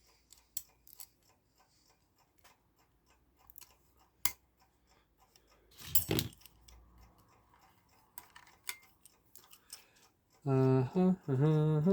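Small metal clicks and taps of screws and washers being handled and fitted into a clock movement's front plate, with a sharp click about four seconds in and a louder short clatter about two seconds later.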